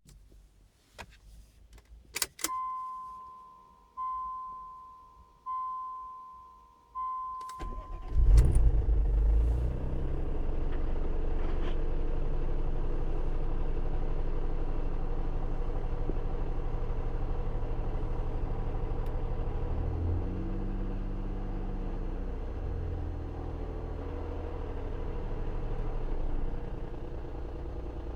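Ford Probe GT: a few clicks, then a dashboard warning chime five times, about a second and a half apart, before the engine cranks and starts about 8 seconds in. It then idles steadily with hydraulic lifter noise that responds as oil pressure comes up.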